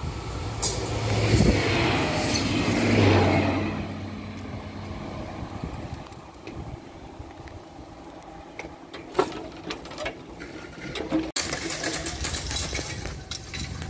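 A motor vehicle drives past, its engine hum swelling over the first few seconds and then fading away, followed by quieter scattered clicks and background noise.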